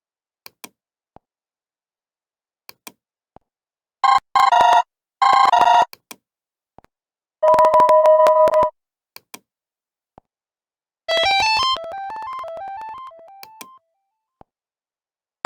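Android ringtones previewed one after another: two short bursts of a trilling electronic ring, then a steady two-tone ring, then a quick run of stepped notes. Faint clicks come in the gaps between them.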